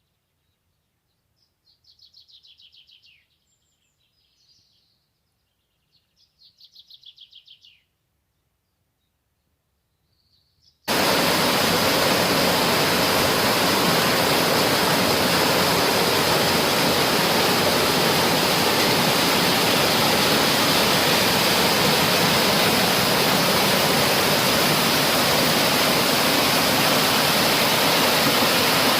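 A small songbird sings two short, fast trills against near silence. About eleven seconds in, the sound switches abruptly to the loud, steady rush of a waterfall, which continues.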